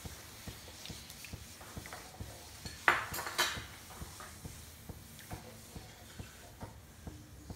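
A spoon stirring soup in a nonstick frying pan, tapping and scraping against the pan about two to three times a second, with a louder clatter about three seconds in.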